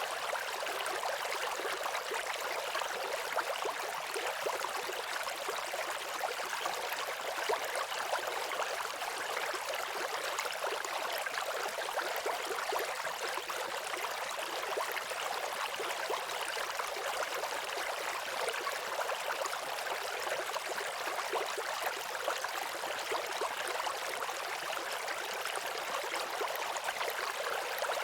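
Waterfall rushing steadily, an even hiss of falling water with little low rumble.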